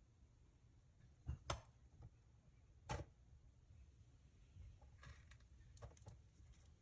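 Near silence broken by a few soft knocks, two close together about a second and a half in and one near three seconds in, with fainter ticks later.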